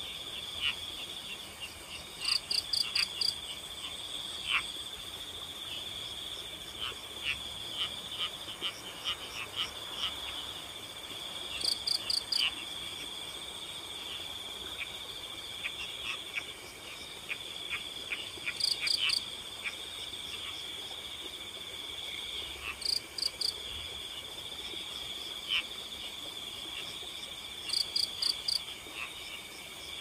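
Night chorus of crickets and frogs: a steady high trill throughout, a louder burst of four or five quick pulses every several seconds, and scattered short calls.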